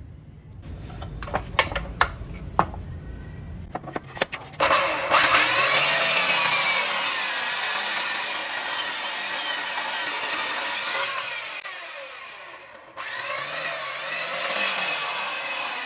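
A few sharp clicks and knocks, then a handheld power tool grinding against a workpiece. It starts suddenly about four and a half seconds in, fades away around eleven to thirteen seconds, and starts grinding again.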